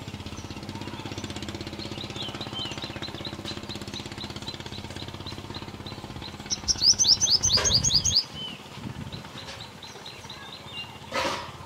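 Purple sunbird calling: a string of short high chirps at about four a second, then a louder burst of rapid sharp notes lasting about a second and a half, then a few more chirps. A low mechanical drone runs underneath and stops about eight seconds in, and a short noisy rush comes near the end.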